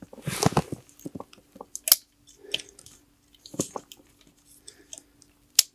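Gloved hands handling an airsoft hand grenade, looping a rubber band over its trigger guard: scattered rustles and small plastic clicks, with one sharp click a little before the end. A faint steady hum runs underneath.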